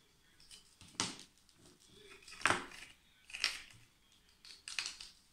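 Thin wire being pulled tight and wound around small nails on a wooden board, giving a few short, faint clicks and scrapes about a second apart.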